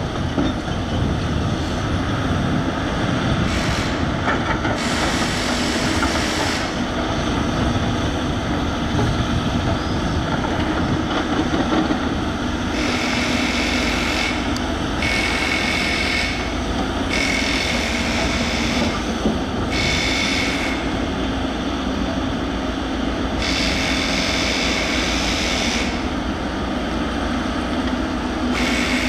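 Heavy diesel excavators working: a steady low engine drone, with a high whine that comes and goes in stretches of a second or two several times in the second half.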